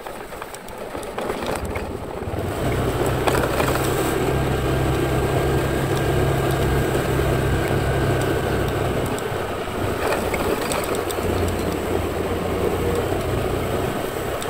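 Motor scooter engine running steadily under way, picking up and getting louder about two seconds in, with road and wind noise.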